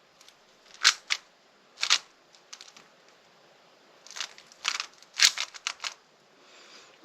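Plastic speedcube being turned by hand during a solve: sharp clicks of the layers snapping round, in scattered single turns and then quick runs of several turns in a row.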